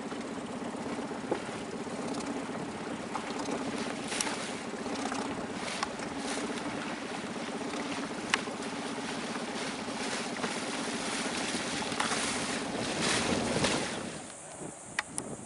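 Wind and choppy water heard from a small boat on open water, with a faint steady motor hum underneath and a few light knocks. The sound drops and changes near the end.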